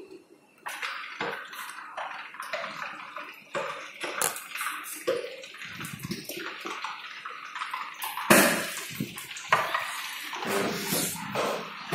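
Water running and splashing unevenly, with a scatter of sudden knocks and clatters, the loudest a little past the middle.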